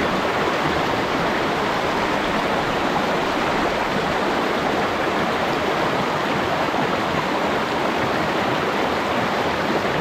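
Mountain stream rushing steadily over rocks in a shallow riffle, a continuous even rush of water.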